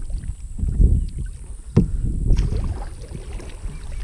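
Kayak being paddled: paddle strokes dipping and splashing in the water about once a second, with a couple of sharp knocks about one and two seconds in, over a low rumble of wind on the microphone.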